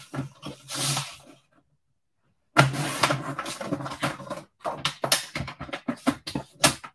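Handling noise on a craft desk: rustling, then a quick run of small sharp taps and knocks over the last two seconds.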